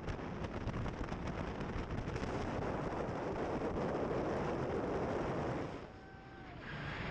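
Wind and engine noise aboard a Navy assault craft under way, with wind buffeting the microphone. The noise drops sharply for about a second near the end.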